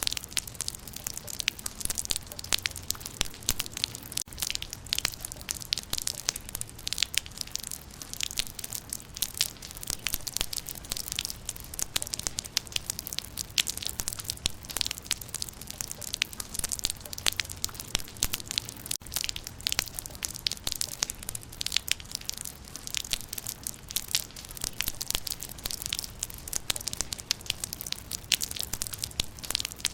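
Rain falling on leaves: a dense, irregular patter of small crisp taps, steady throughout.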